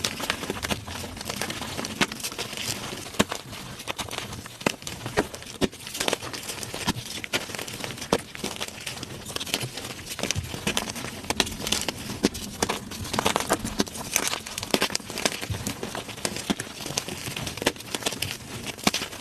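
Blocks of gym chalk being crushed, a dense, continuous run of crisp crunches and crackles as the chalk crumbles to powder.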